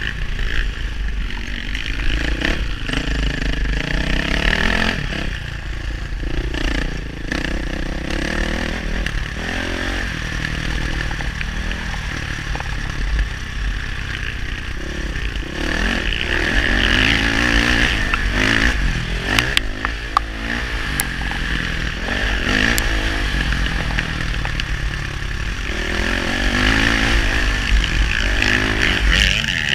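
KTM four-stroke single-cylinder dirt bike engine revving up and falling back again and again under riding load, heard from on the bike with heavy wind buffeting on the microphone. A few sharp clicks come about two-thirds of the way through.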